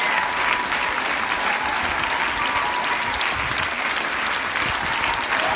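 Spectators applauding, a dense steady clapping.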